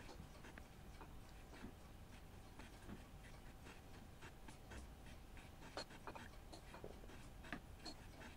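Faint, irregular light ticks and scrapes, several a second, from a cutter held in a milling machine's quill, shaping a slot in a cast-iron lapping tool by hand strokes. A faint steady hum sits behind them.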